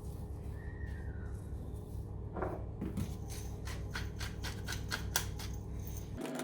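Hand pepper mill being twisted over the mushrooms: a run of quick clicks, about five a second, from about three seconds in, over a steady low hum.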